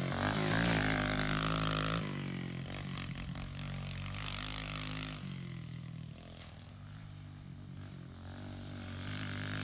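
Kawasaki KLX110 pit bike's small four-stroke single-cylinder engine running as the bike is ridden round a dirt track. It is loudest for the first two seconds, drops away as the bike moves off, and grows again near the end as it comes back.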